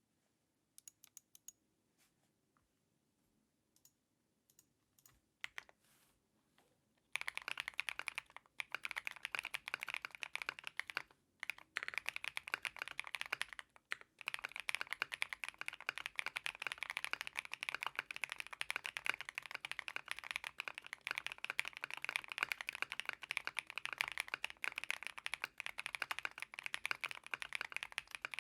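Custom mechanical keyboard typing: a Mr. Suit with Night Sakura linear switches (a Durock POM recolor), PBT keycaps and a polycarbonate plate. A few scattered, quieter key presses at first, then fast continuous typing from about seven seconds in, with two short breaks.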